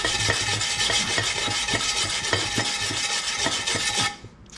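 Wire brush scrubbing the aluminum wheel rim around the crack repair in quick back-and-forth strokes, about four a second. It stops abruptly about four seconds in.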